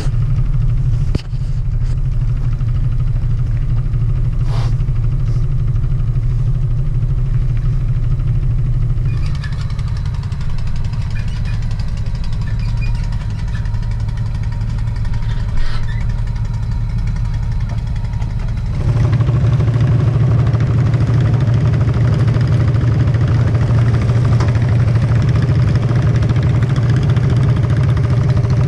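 An engine idling steadily with a low, even hum. It grows louder and fuller about nineteen seconds in.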